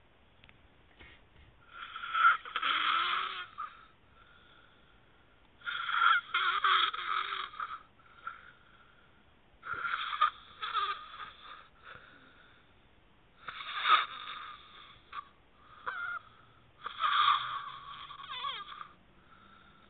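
A sleeping man snoring, one snore about every four seconds, five in all.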